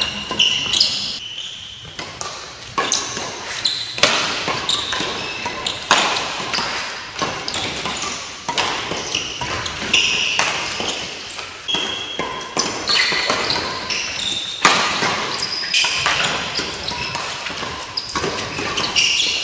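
Badminton rally: rackets strike the shuttlecock every one to two seconds, with shoes squeaking and footfalls on the court floor between hits.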